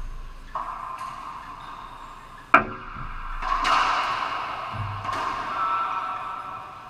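Racquetball rally: the ball cracking off racquets and the court walls, each hit ringing on in the enclosed court. The loudest, sharpest crack comes about two and a half seconds in, with several softer hits before and after.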